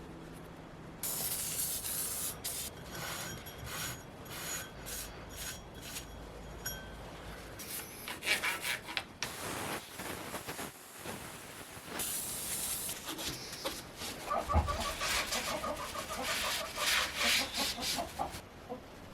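Repeated hand rubbing and scraping strokes, irregular in pace. From about 14 seconds in there is a rapid, squeaky chatter.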